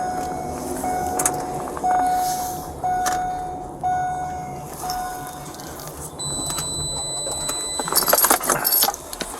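A patrol car's warning chime beeping six times, about once a second, then a steady high electronic tone for about two seconds. Near the end comes a loud burst of rattling and rustling.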